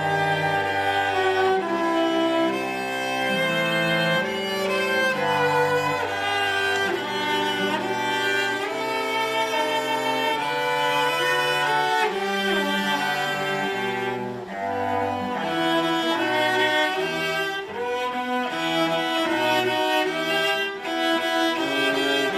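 A cello ensemble playing a slow piece: a sustained bowed melody over a moving bass line, the notes changing about every second.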